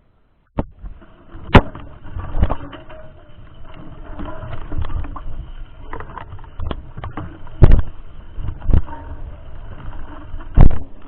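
Riding a mountain bike over a rough dirt trail: a steady rumble with sharp knocks and rattles as the bike hits bumps, the loudest about a second and a half in, near eight seconds and near the end.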